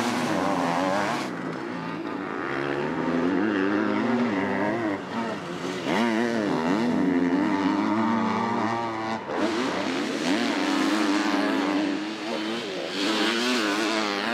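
Two 250cc four-stroke motocross bikes revving hard while racing close together. The engine pitch keeps rising and falling as the riders work the throttle and change gear through corners and jumps, and the sound shifts suddenly about a second in and again about nine seconds in.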